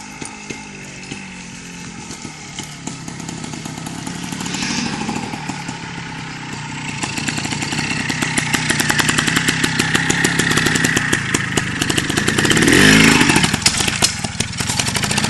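Yamaha TY250 trials motorcycle's two-stroke single-cylinder engine running, growing louder as the bike comes closer. About 13 seconds in it revs up sharply and drops back as the bike climbs onto a big tyre.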